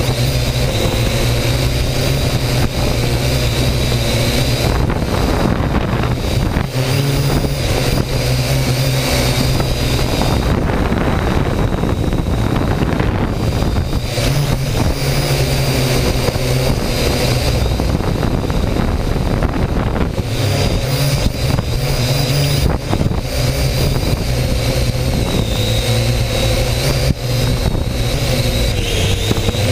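Drone's electric motors and propellers whirring steadily in flight, heard loud and close from a GoPro hanging beneath it, the hum shifting in pitch and level now and then as it manoeuvres.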